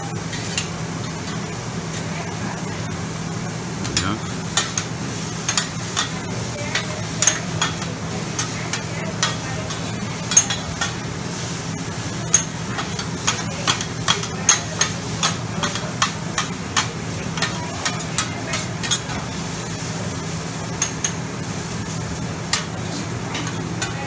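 Metal spatulas clacking and scraping on a flat-top hibachi griddle as food is stir-fried, with irregular sharp clacks starting about four seconds in, over a steady sizzle and a low hum.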